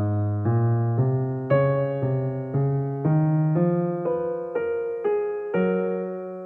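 Instrumental background music: evenly paced notes, about two a second, over a bass line that climbs step by step.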